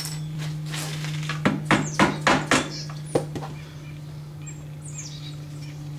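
A quick series of sharp metal knocks as a bolt is worked through the rear suspension arm mount of a 1996 Suzuki LT-4WD QuadRunner ATV, five of them close together around two seconds in, over a steady low hum.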